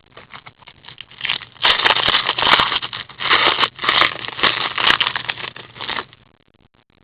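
Crinkling and tearing of a trading-card pack wrapper as a pack is opened by hand, a dense run of crackles and clicks that stops about six seconds in.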